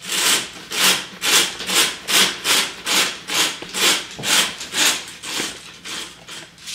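Rhythmic rubbing or scraping strokes close to the microphone, about two a second, growing fainter near the end.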